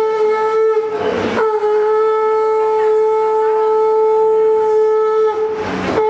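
Conch shell (shankha) blown in a long, steady held note, the traditional sound of a Bengali wedding ritual. There are two brief breathy breaks, about a second in and again near the end.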